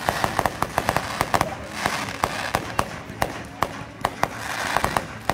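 Fireworks going off: rapid, irregular sharp bangs and crackles in quick clusters, with hissing between them.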